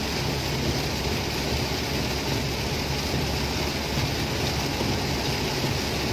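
Heavy rain beating on the roof and windscreen of a moving car, heard inside the cabin as a steady loud rush mixed with tyre noise on the wet road.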